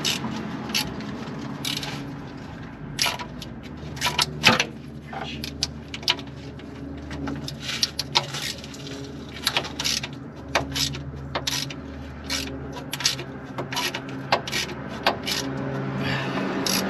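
Hand ratchet and socket working rusty transmission pan bolts: irregular sharp metallic clicks and scrapes as the handle is swung and ratcheted back.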